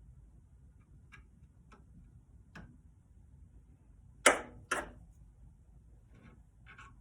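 A few light clicks, then two sharp clacks about half a second apart, from handling metal pipe fittings and a can of pipe thread sealant.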